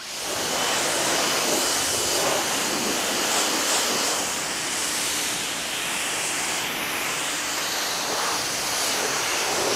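Pressure washer spraying water onto a car during its rinse: a steady hiss of spray that cuts in suddenly just after a click.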